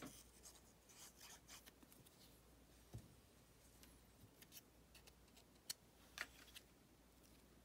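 Near silence broken by faint rustling and light clicks of small paper pieces handled on a tabletop, with a soft knock about three seconds in and two sharper ticks around six seconds.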